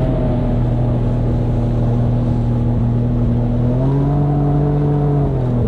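Boat motor running steadily under way; its pitch rises about four seconds in, then drops back just before the end.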